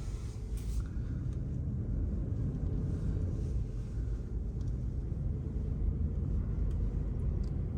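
Car cabin road noise while driving slowly: a steady low rumble of engine and tyres, with a faint hiss from tyres on wet pavement.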